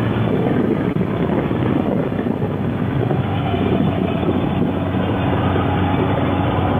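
Motorcycle engine running steadily while riding at cruising speed, with the rush of wind and road noise.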